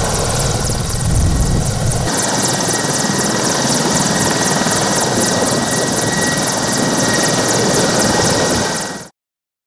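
Mil Mi-24 (Hind) attack helicopter flying low and close past, its main rotor beating rapidly over a steady turbine whine. The sound cuts off suddenly near the end.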